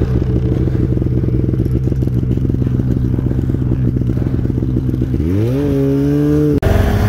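Snowmobile engine idling with a rapid, even putter. About five seconds in it revs up and holds at a higher, steady speed, with a brief sudden drop-out near the end.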